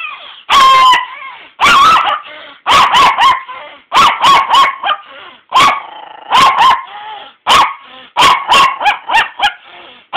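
Dog barking: about twenty short, sharp barks, some single and some in quick runs of two to four. The dog is objecting to being woken and handled.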